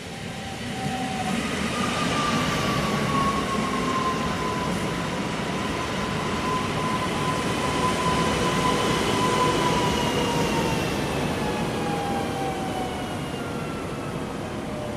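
Newag Impuls 35WE electric multiple unit rolling in past on the rails, its traction-motor whine falling in pitch as it slows on arrival at the stop. The train grows louder about two seconds in and fades slightly toward the end.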